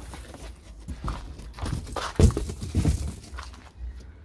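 A string of knocks and footsteps on a dirt yard, the loudest a little after two seconds, over a low steady rumble.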